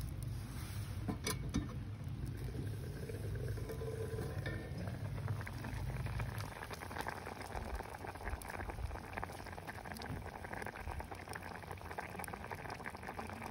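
A pot of liquid bubbling at a steady boil. A low rumble underneath stops about six seconds in, after which the bubbling hiss is clearer, and it all cuts off suddenly near the end.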